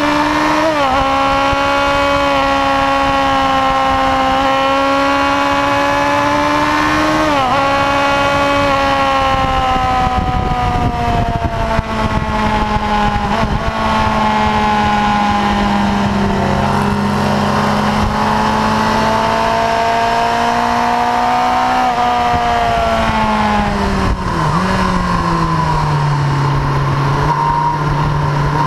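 1999 Yamaha R1's 998 cc inline-four engine heard onboard at racing speed. It runs at high revs with two quick gear changes in the first eight seconds, then its note drops and settles lower as the bike slows.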